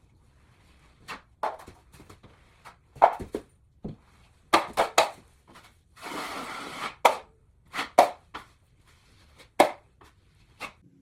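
Hand tools knocking and tapping against drywall in irregular sharp strikes, with a scrape lasting about a second around the middle.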